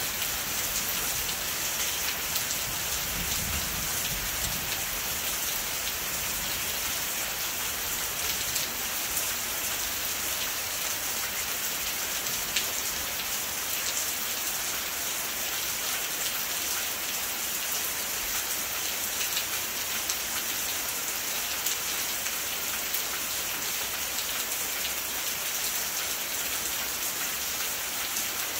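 Steady rain falling: a continuous hiss with scattered sharper drop ticks. A brief low rumble comes about three seconds in.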